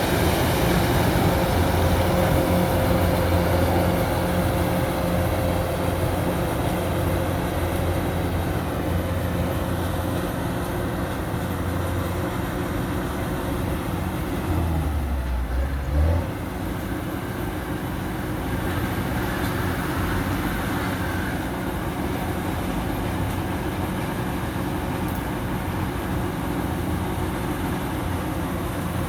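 Kubota DC-105X combine harvester running steadily under load while cutting rice, its diesel engine giving a constant low hum. About halfway through the hum shifts briefly and ends in a short knock.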